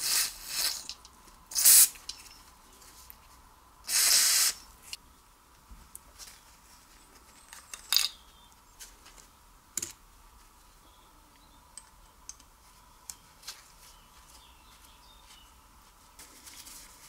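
Aerosol cleaner sprayed from a can in four short hissing bursts onto small carburetor parts, the longest about four seconds in. Then scattered light clicks and taps of small metal carburetor parts being handled and refitted.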